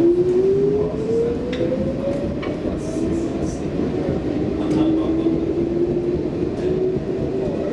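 Stockholm Metro C14 train accelerating away from a station, heard from inside the car. Its traction drive whines, rising in pitch over the first two seconds or so, dropping back, then climbing again more slowly over steady running noise. A few short clicks are heard.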